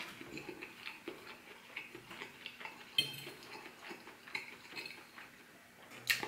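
Metal fork clinking and scraping on a ceramic plate while scooping rice, as light scattered clicks, with a sharper click about three seconds in and another near the end.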